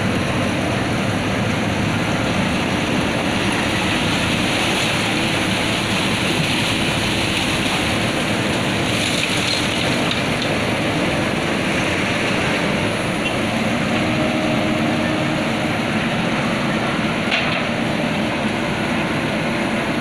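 Diesel engine of a JCB backhoe loader running steadily while its backhoe arm digs.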